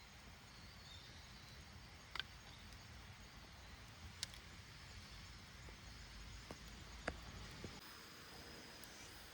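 Wood campfire crackling faintly: a handful of sharp, scattered pops over a low steady rumble.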